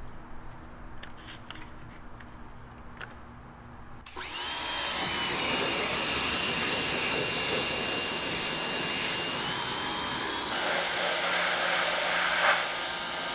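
Corded electric pressure washer starts up about four seconds in and runs steadily, its motor and pump giving a high whine over the hiss of the spray. The tone shifts slightly about ten seconds in. Before it starts there are only a few faint clicks.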